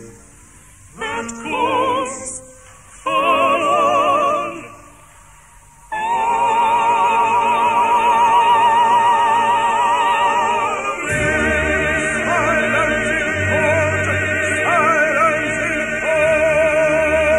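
Operatic singing with wide vibrato: a few short sung phrases broken by pauses, then from about six seconds in several voices hold a long sustained chord. A deeper accompaniment joins beneath it about five seconds later.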